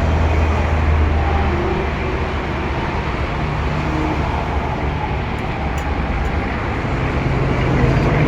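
Strong wind blowing across the microphone: a loud, steady rumbling rush with no break.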